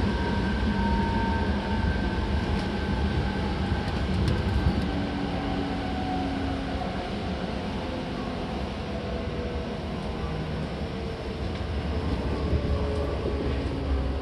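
Seibu 6000 series electric train running, its Hitachi GTO VVVF inverter and traction motors whining over the rumble of the wheels. Several whining tones slowly fall in pitch as the train slows.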